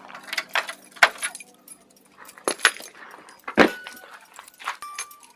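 Bunch of keys jangling, with several sharp metallic clicks, as the motorcycle's ignition key is put in and turned.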